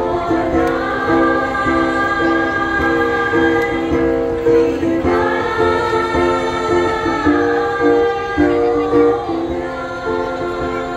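A mixed choir of men and women singing in chorus through stage microphones, holding chords that change every second or so.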